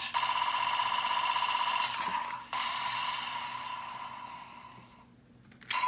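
Bandai DX Magnum Shooter 40X roleplay toy with the Fantasy Buckle fitted, its small speaker playing a buzzing electronic ringing tone. The tone breaks off briefly about two and a half seconds in, starts again and fades away. A few sharp clicks follow near the end.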